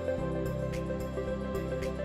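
Background music: a soft, slow instrumental with sustained chords that change about a quarter of a second in.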